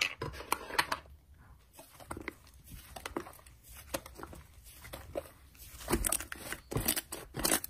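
Soft slime being squeezed, folded and stretched by hand, giving off irregular small crackles and sticky pops.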